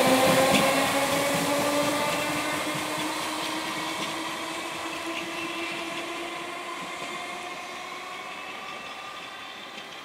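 Merseyrail PEP electric multiple unit accelerating away: its traction motor whine rises slowly in pitch over the running noise, and the whole sound fades steadily as the train recedes.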